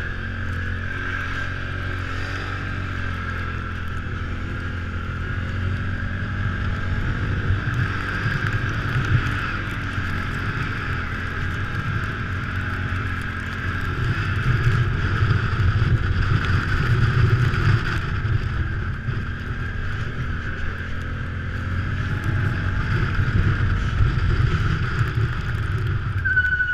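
Off-road vehicle's engine running steadily while riding through snow, heard from the seat with wind on the microphone. It grows louder about halfway through and again near the end as the throttle opens.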